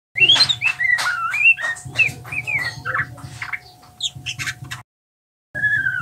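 A juvenile white-rumped shama sings a quick jumbled run of gliding whistles and chirps: the rambling practice song (ngeriwik) of a young bird learning to sing. The run breaks off a little before five seconds in, and a new phrase starts just before the end.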